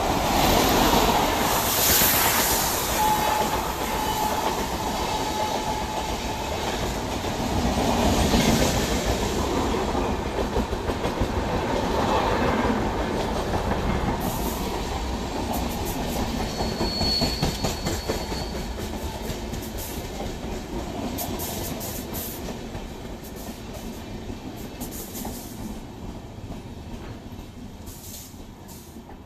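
Electric-hauled express train with LHB coaches running through a station at speed. The wheels clatter over rail joints, loudest as the locomotive passes at the start, and die away slowly near the end. A brief high squeal of the wheels comes about midway.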